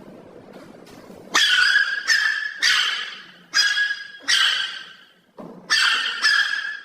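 A dog giving a run of about seven high-pitched yelps, each trailing off, starting about a second and a half in.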